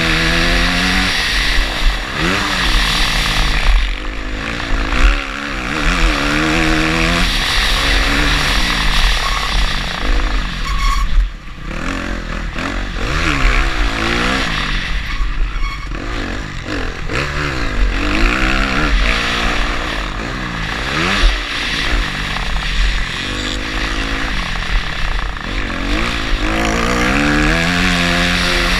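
Motocross bike engine heard from an onboard camera, revving up and dropping back again and again as it is ridden round a dirt track, with a brief let-off about eleven seconds in.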